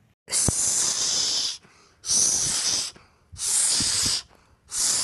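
A hissing whoosh sound effect, played four times in a row. Each one lasts about a second and stops sharply, with short silent gaps in between.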